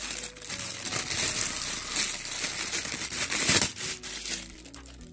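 Clear plastic bag crinkling and crackling as hands unwrap a small plastic figurine from it, loudest about three and a half seconds in, then dying down.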